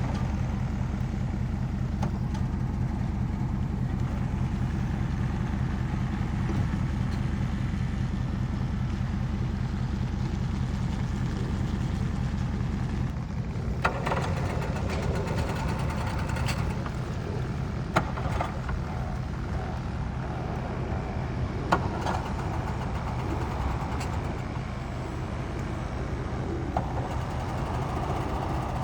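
Small string-trimmer (weed eater) engine driving a kayak, running steadily with a low, fast pulsing drone, with a few sharp clicks partway through.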